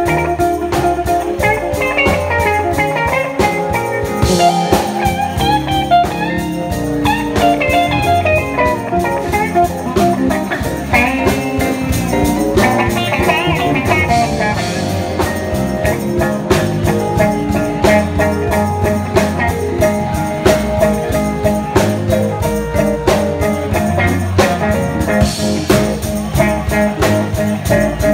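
Electric guitar solo played live over electric bass and a drum kit, a groovy, steady beat under shifting single-note lines.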